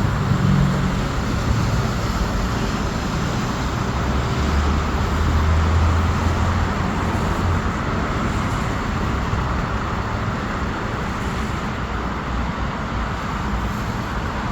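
Steady low rumble of vehicle noise, a little stronger for a few seconds near the middle, with no sharp events.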